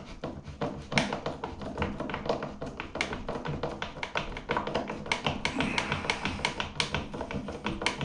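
Hand screwdriver turning the mounting screws of a ceiling exhaust fan, a fast, steady run of small clicks several times a second as the screws tighten and the fan's clamps draw up against the plasterboard.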